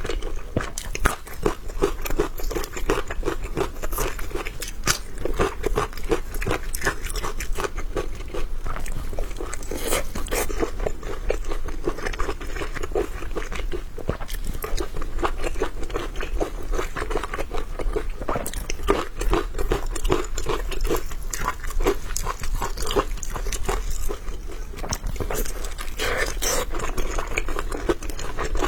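A person biting and chewing food with crunching, in irregular, continual mouthfuls.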